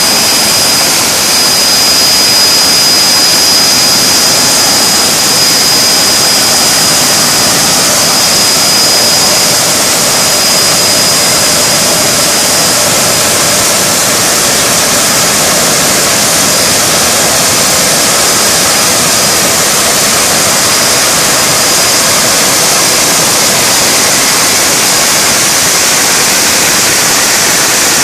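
Joy EB compressor running under a bench test: a loud, steady rushing hiss with a thin high whistle on top that fades about halfway through.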